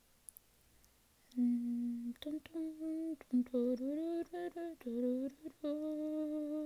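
A woman humming a tune to herself, a string of held notes that step up and down in pitch, starting about a second and a half in.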